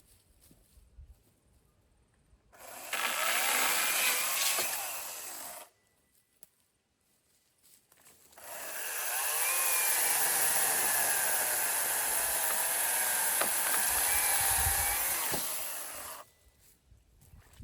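Chainsaw running at full revs twice, first for about three seconds and then for about eight, cutting into a fallen gum tree for poles. It drops back to quiet between the two cuts.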